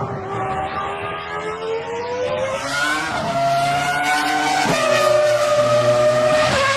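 Ferrari F2004 Formula One car's 3.0-litre V10 at high revs, accelerating through the gears: its pitch climbs, drops sharply at upshifts about three and nearly five seconds in, and climbs again. It grows louder as the car approaches.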